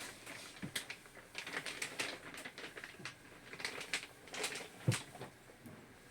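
A run of irregular light clicks and knocks, with a duller thump about five seconds in.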